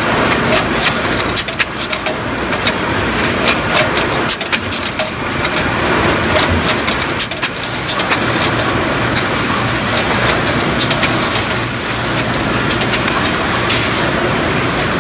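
High-speed packaging machine for frozen hamburger patties running: a loud, steady machine noise with rapid, irregular clicking and clacking.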